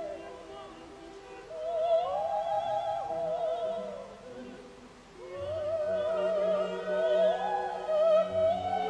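Background music: operatic singing with a strong vibrato on long held notes, over classical accompaniment. It eases off briefly about four seconds in, then the voice swells back.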